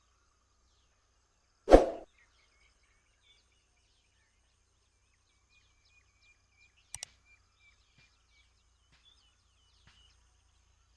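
Hand-tool work on the engine: one dull knock about two seconds in, then two quick sharp clicks near the middle. Faint birds chirp in the background.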